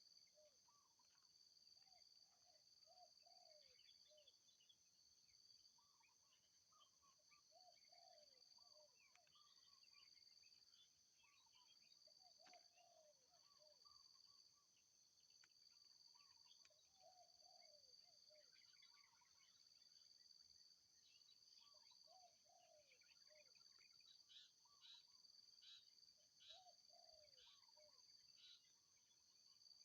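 Faint wild birds and insects: a steady high insect buzz, a low bird phrase repeated every four or five seconds, and scattered higher chirps that grow busier near the end.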